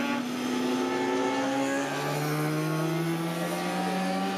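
Racing motorcycles circulating on the track: several engines overlap, their pitch rising slowly as they accelerate.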